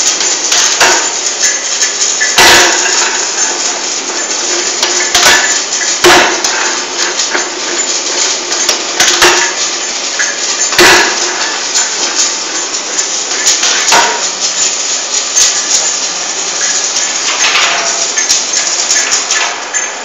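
Envelope cutting machine running: a steady metallic clatter broken by loud, heavy knocks every one to three seconds.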